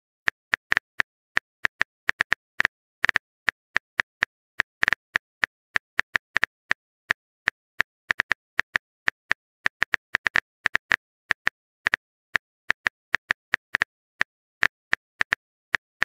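Phone keyboard tap clicks as a message is typed out letter by letter. The clicks are short and sharp, unevenly spaced at about five a second.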